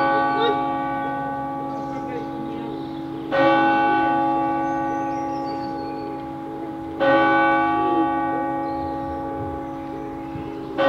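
A single church clock bell striking the hour, slow even strokes about three and a half seconds apart. Each stroke rings on and fades before the next. This is the count of seven o'clock.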